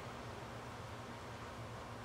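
Faint steady low hum with a soft hiss: background room tone, with no distinct event.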